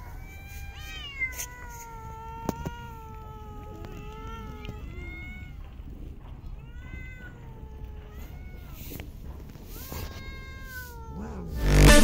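Cats meowing again and again, a series of calls with rising and falling pitch, some short and one drawn out for several seconds. Near the end, loud electronic music cuts in.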